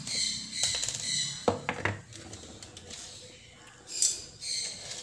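Plastic handle casing of an electric mosquito bat being handled and set down on a wooden table: scraping and rustling, with two sharp clicks about a second and a half in.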